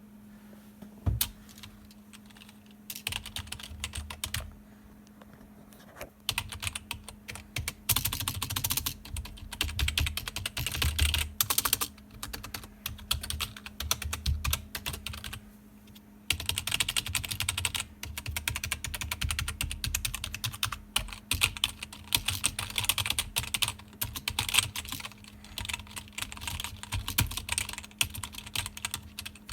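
Typing on a computer keyboard: bursts of rapid key clicks with brief pauses between them, over a steady low hum.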